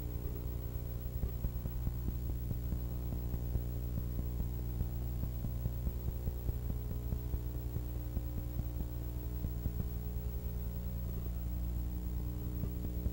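Steady low electrical mains hum with several overtones and a faint crackle on the soundtrack, with no other sound over it.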